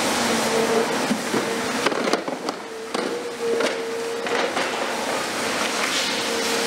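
Hydraulic demolition crusher on a long-reach CAT 336F excavator biting into concrete and a window frame: sharp cracks and crunches of breaking concrete over steady machine noise, with a hum that comes and goes several times.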